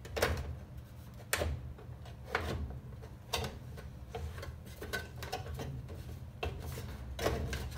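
Sharp clicks and knocks of a top-load washer's metal console back cover being handled and pressed into place, the first four about a second apart and lighter ones after, over a low steady hum.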